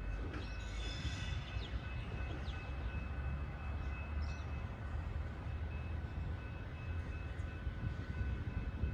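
Distant Tait electric train running: a steady low rumble with a faint, steady high-pitched whine over it, and a brief higher squeal about a second in.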